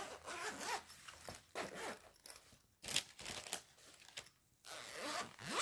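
Irregular rustling and crinkling as a fabric knitting-needle storage case with clear plastic pockets is handled and opened out, with a few soft clicks.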